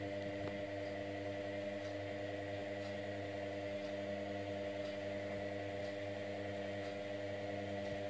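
Indesit Innex front-loading washing machine running a wash cycle as its drum tumbles a sudsy load: a steady, even hum with a faint high whine above it.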